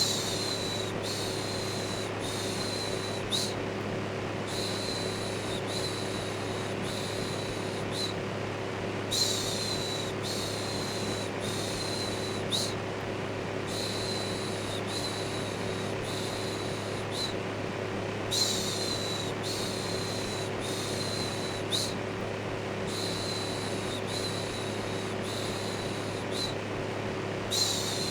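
Electric fan running steadily with a low hum, overlaid with rhythmic shushing: a high "shh" repeated a little under once a second in runs with short pauses between them, looped as white noise to calm a baby.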